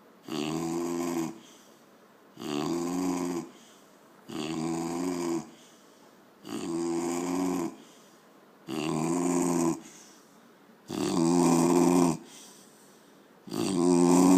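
Steady, regular snoring: seven snores about two seconds apart, each lasting about a second, the last two louder than the rest.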